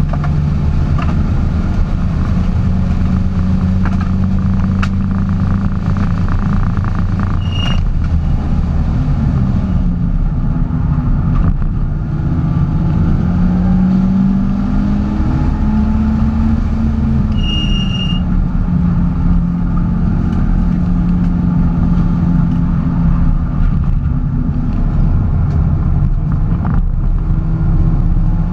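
Porsche driving along, its engine running steadily with the pitch drifting up and down over road noise. Two short high beeps sound, one about 8 seconds in and one about 18 seconds in.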